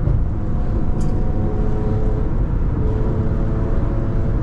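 Infiniti Q50 driving at highway speed: a steady rumble of engine and road noise with a faint even hum over it.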